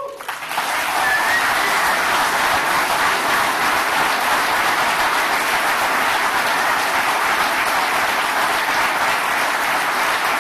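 Crowd applauding, a dense, steady clapping that swells up in the first half second and then holds.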